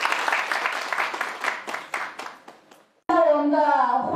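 Audience applauding, dying away over about three seconds; then a sudden cut to a woman speaking over a microphone.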